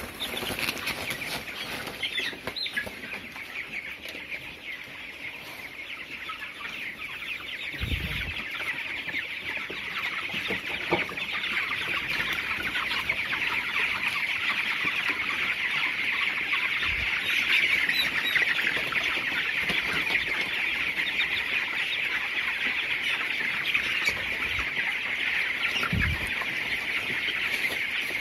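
A large flock of 22-day-old broiler chickens in a shed, many birds chirping and clucking at once in a dense, continuous chatter that grows louder after about eight seconds, with some wing flapping and a few dull thumps.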